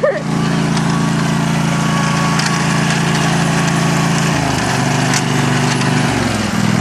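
Ride-on lawnmower engine running steadily. It drops in pitch about two-thirds of the way through and falls again near the end.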